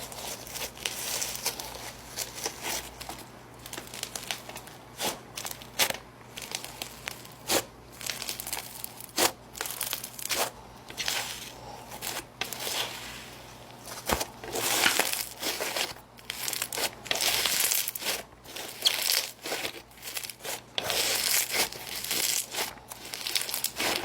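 LimeSlime's Japanese Vending Machine snow fizz slime being squeezed and worked by hand, crackling and crinkling with frequent sharp clicks.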